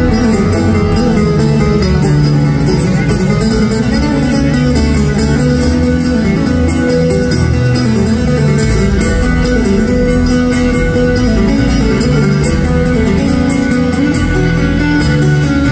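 Live bluegrass string band playing at full volume through an arena PA, with acoustic guitar, upright bass and fiddle.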